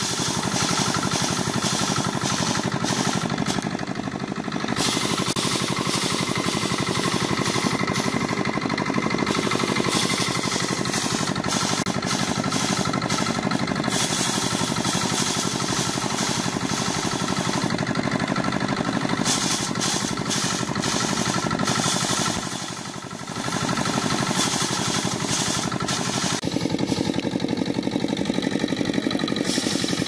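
Engine-driven rice thresher running steadily, its wire-toothed drum rattling as bundles of rice stalks are held against it and stripped of grain. The sound dips briefly about two-thirds of the way through and shifts in tone near the end.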